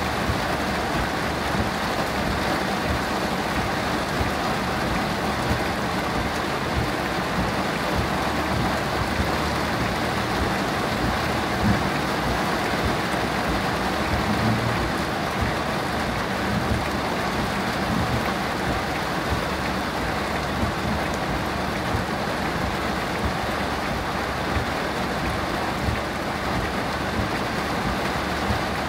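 Torrential cloudburst rain falling hard on a car's roof and windshield, heard from inside the cabin as a steady, dense hiss.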